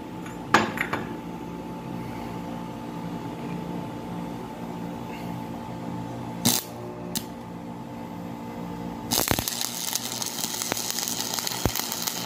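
Stick (arc) welding: the electrode arc crackles and hisses steadily for the last few seconds, laying a short weld bead to build up the worn bearing seat of a car's front wheel hub. Before it there is a steady hum, with a metal clank about half a second in and a sharp click near the middle.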